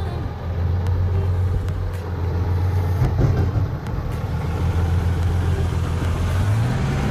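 Opel Frontera 4x4's engine running at low revs as the SUV drives down into and through a shallow water crossing, with water splashing around the tyres. The engine note rises near the end.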